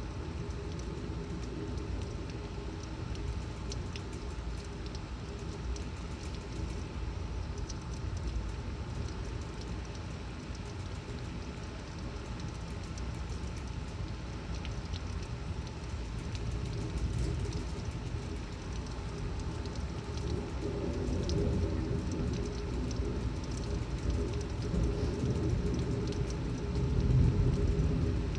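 Torrential rain pouring down in a severe thunderstorm, a steady rushing hiss. A deeper low rumble swells louder twice, about two-thirds of the way through and again near the end.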